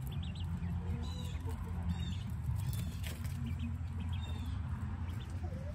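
Coturnix quail hens calling softly: several short, high chirps about a second apart, over a steady low hum.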